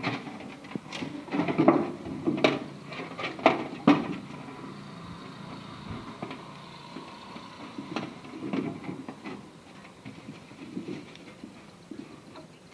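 Several sharp knocks and clicks in the first few seconds as hands work inside an open metal tin box, then quieter handling.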